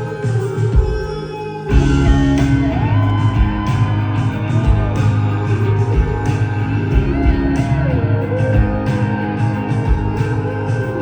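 Live rock band playing an instrumental passage: electric guitar, bass and drums, with a steel guitar gliding between notes. After a thinner opening, the full band comes in a little under two seconds in.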